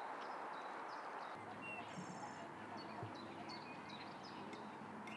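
Outdoor waterside ambience: a steady soft hiss with scattered small bird chirps over it, and a short rapid high trill about two seconds in.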